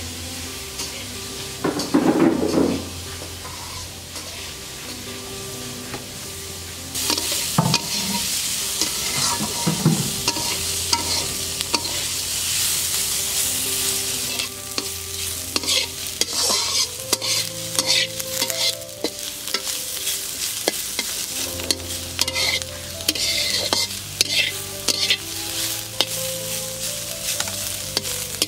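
Chopped ridge gourd peel sizzling in hot oil in an iron karahi while a metal spatula stirs and scrapes it around the pan in quick strokes. The sizzling turns loud about seven seconds in.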